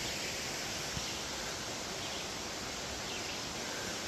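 Steady rush of flowing stream water, an even hiss without pauses.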